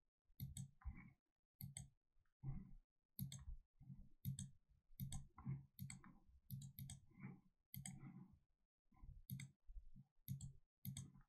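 Computer mouse clicking repeatedly at an irregular pace, many of the clicks in quick pairs, with near silence between them.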